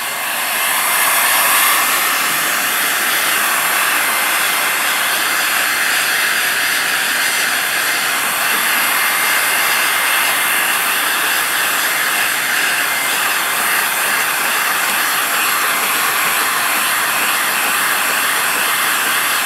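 Electric heat gun blowing a steady stream of hot air, held over a freshly coated metal plate to cure liquid powder coat. It grows louder over the first two seconds, then runs steadily.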